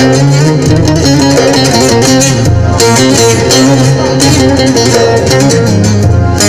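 Instrumental music: a plucked string melody over a steady, pulsing bass.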